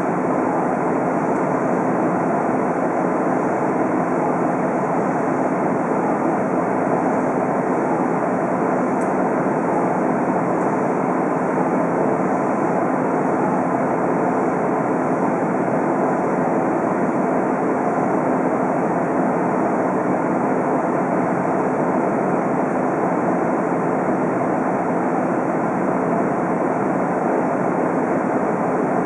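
Diesel railcar standing at a station with its engine idling, heard from inside the passenger cabin as a steady hum.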